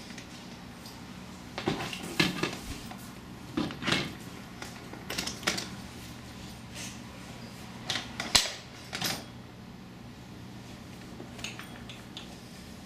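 Metal clinks and knocks from a boat launching wheel set being handled and fitted onto its mounting brackets: a scattered run of clanks between about 2 and 9 seconds in, the sharpest one a little after 8 seconds.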